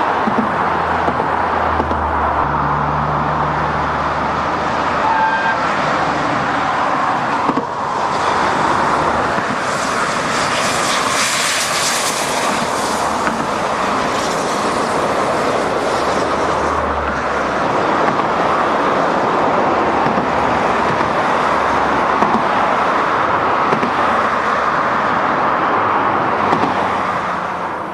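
LNER Peppercorn A1 Pacific steam locomotive 60163 Tornado and its express train passing at speed: a steady rush of wheel and rail noise that is brightest about halfway through.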